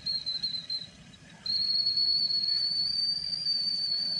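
A high, steady whistle tone that breaks off for about half a second roughly a second in, then returns and slowly creeps up in pitch.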